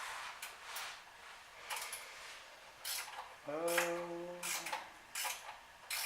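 Metal hand tools clinking and clicking in short strokes, about one to two a second, as a wrench works the nuts on an exhaust manifold. About halfway through there is a brief low groan lasting about a second.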